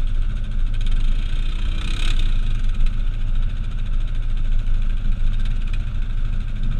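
Off-road vehicle engine running steadily, a low drone, with a short burst of higher noise about two seconds in.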